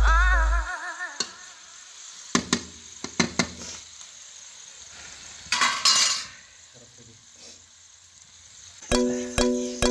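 Chicken sizzling in hot oil in a wok over a wood fire, with a metal ladle clinking and scraping against the pan as it is stirred. A louder hiss comes about halfway through. Background music fades out at the start and comes back near the end.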